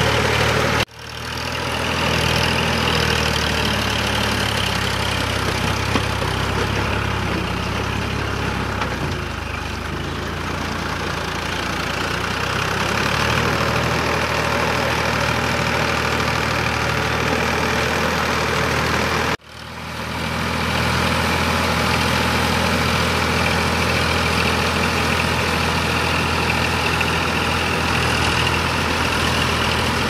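Sonalika tractor's diesel engine running steadily under load as the cage-wheeled tractor churns through a flooded, muddy paddy field. The sound cuts out briefly twice, just under a second in and about two-thirds of the way through.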